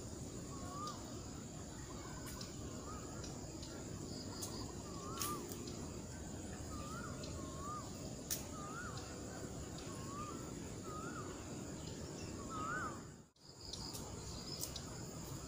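A bird calling over and over in short rising-and-falling notes, roughly one a second, the last ones a little higher. Behind it runs a steady high insect drone, with a few faint clicks, and the sound drops out for a moment near the end.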